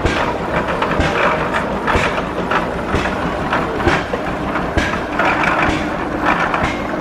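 1906 Frick steam traction engine driving past, its exhaust chuffing in a steady beat of about two strokes a second over a continuous mechanical clatter.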